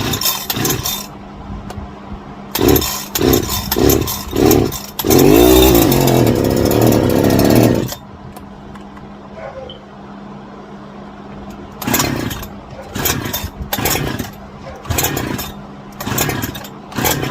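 Husqvarna 365 Special two-stroke chainsaw being pull-started on a freshly fitted ignition coil: several quick pull-cord tugs, then the engine catches and runs loudly, its pitch changing, for about three seconds before stopping abruptly. Near the end comes another run of pull-cord tugs without the engine catching.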